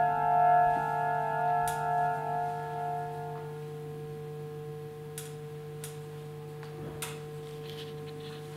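Electronic drone of steady sustained tones, the higher ones fading out about three seconds in while a low hum and a middle tone hold on. A few sharp clicks sound in the second half.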